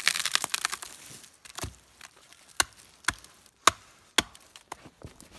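A knife being batoned through a log: a wooden stick knocks on the spine of the blade about seven times, irregularly and roughly half a second apart, driving it into the wood. A short crackle of splintering wood comes just before the first knock.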